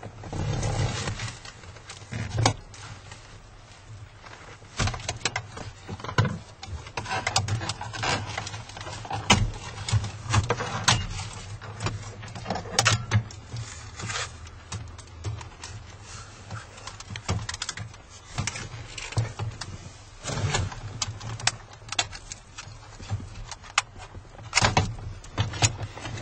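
Plastic dashboard trim on a Chrysler 300C being pried off and handled, with irregular clicks, knocks and scraping of panels and retaining clips.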